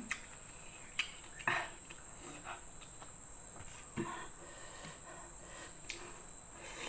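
Close-up eating sounds: a handful of short wet mouth clicks and smacks while chewing, over a steady high-pitched insect chirring.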